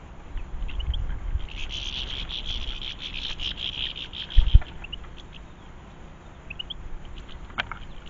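Goldfinches twittering: a rapid run of high notes lasting about three seconds, with a few short rising chirps before and after. A single low thump about four and a half seconds in is louder than the birdsong.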